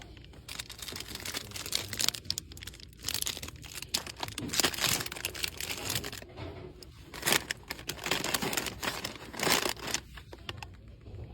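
Crinkly packaging being handled, rustling and crackling in irregular bursts with short quieter pauses.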